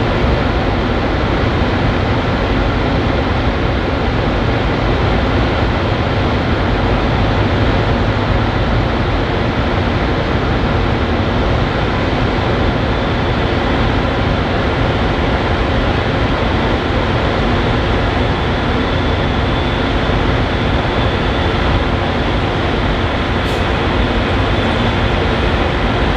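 Diesel locomotive engine running steadily, a loud even drone with a constant pitch.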